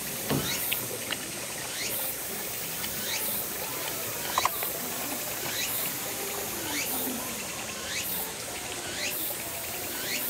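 A capybara chewing and smacking its lips on hand-fed food, with a few sharp mouth clicks. A faint, short rising chirp repeats about once a second behind it.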